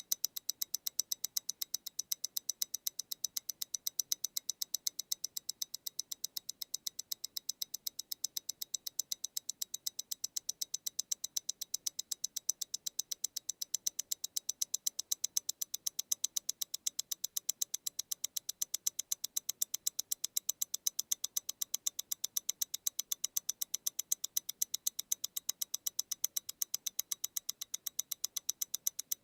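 MEMORIGIN Stellar tourbillon wristwatch ticking, its mechanical movement beating at 28,800 vibrations per hour: a fast, perfectly even run of about eight crisp ticks a second.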